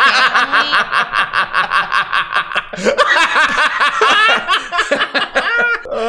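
Men laughing hard: a fast, unbroken run of high-pitched ha-ha pulses, about five a second.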